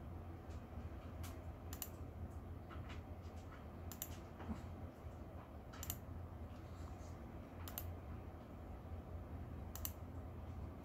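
Sharp clicks from a laptop's mouse or trackpad buttons, one every two seconds or so and once in a quick pair, as installer buttons are clicked, over a faint steady low hum.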